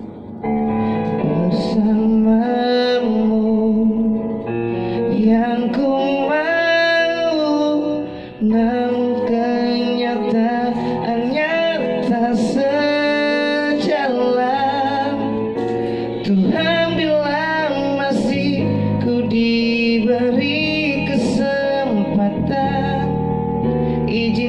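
A man singing into a handheld microphone, his voice wavering and held on long notes, over a backing with piano; the vocal breaks off briefly about a third of the way in, then resumes.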